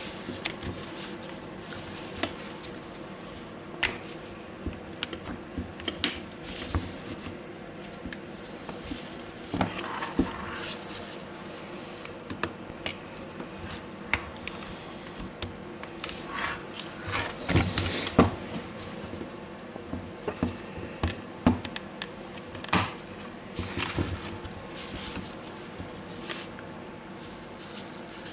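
Plastic and metal parts of a DeWalt DCH273 cordless rotary hammer being handled and seated during reassembly: irregular clicks, taps and light knocks as the gearbox assembly and trigger switch are fitted into the plastic housing, with a denser cluster of knocks past the middle.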